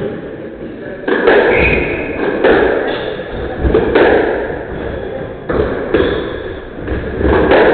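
Squash rally: a series of sharp strikes of the ball off rackets and court walls, roughly one a second, each echoing briefly in the enclosed court.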